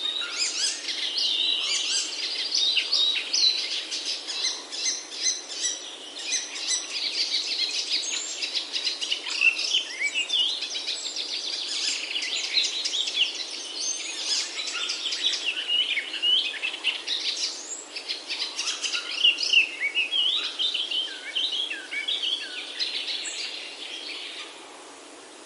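Small birds chirping and singing, many short overlapping chirps, fading down near the end.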